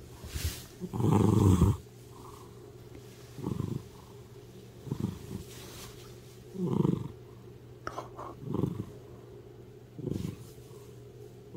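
Domestic cat purring in loud pulses, about one every one and a half to two seconds, the longest and loudest about a second in.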